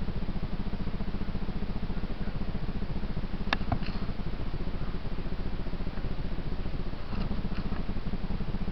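Dirt bike engine idling steadily, with a short sharp click about three and a half seconds in and a few faint ticks near the end.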